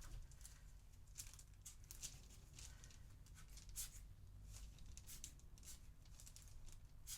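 Short, faint puffs of breath blown again and again onto wet UV resin to push it into waves, over a low steady hum.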